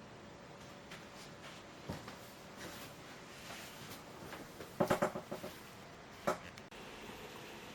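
Faint clicks and knocks, with a quick run of about half a dozen sharp taps about five seconds in and a single knock shortly after.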